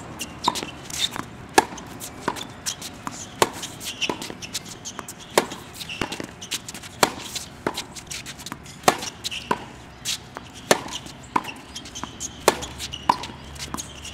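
Tennis ball being struck by rackets and bouncing on a hard court during a rally: sharp pops about one to two a second at an uneven pace, with lighter knocks between.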